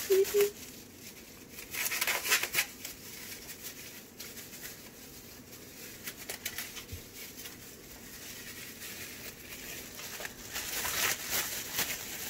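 Thin clear plastic disposable gloves crinkling and rustling as they are pulled on and handled, in bursts about two seconds in and again near the end.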